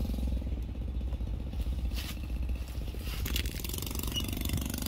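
A small engine running steadily with a low, even throb. A few brief rustles and knocks sound over it.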